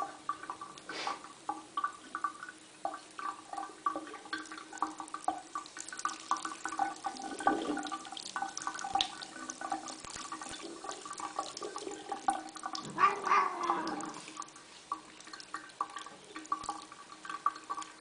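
Water running from a tap and splashing, with a steady patter of drips. A cat meows once about 13 seconds in, a call that rises and falls.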